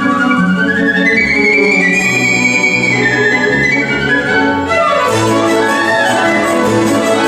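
Violin playing a classical melody in rising and falling runs over lower accompanying parts from a small chamber ensemble.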